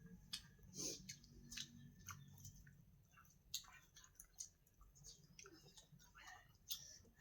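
Faint close-up chewing and mouth sounds of a person eating: irregular wet smacks and small clicks.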